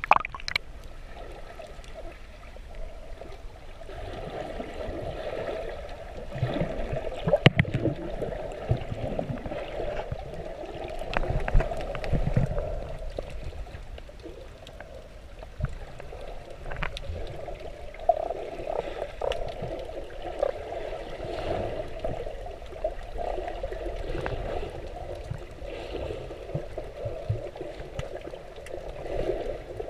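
Water sloshing and gurgling around a camera held at and below the sea surface while snorkeling, a steady wash with a few brief louder surges.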